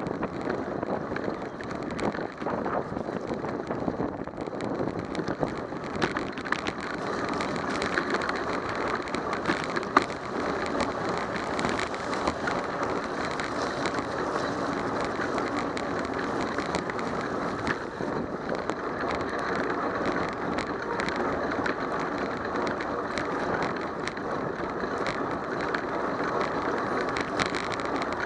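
Steady hiss of bicycle tyres rolling on rain-soaked pavement, mixed with wind noise on the microphone, with scattered small clicks and one sharper tick about ten seconds in.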